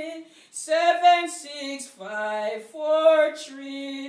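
A woman singing a slow revival hymn chorus unaccompanied, in long held notes broken by short pauses.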